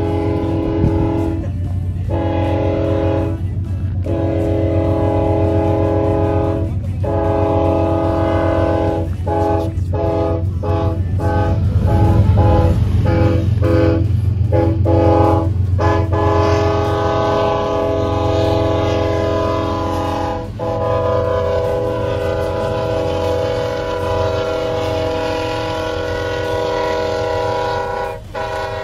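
A freight train's diesel locomotive air horn blowing a chord over and over. It gives several blasts, then a run of quick short toots, then one long blast of about twelve seconds near the end. A steady low rumble runs underneath.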